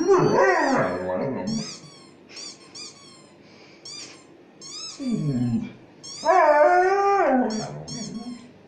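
A Xoloitzcuintli (Mexican hairless dog) howling in two long, wavering, talking-like vocalizations, one at the start and a longer one from about five seconds in, in reaction to a squeaky-toy sound. The squeaky toy plays from a phone speaker as repeated clusters of short high squeaks throughout.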